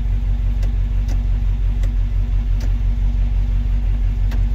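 A 1966 Ford Cortina 1500's four-cylinder engine idling steadily, heard from inside the cabin, with a few faint clicks over the low hum.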